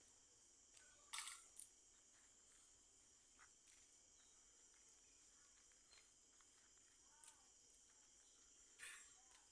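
Faint, steady high-pitched chirring of crickets at night, with a couple of brief clicks about a second in and near the end.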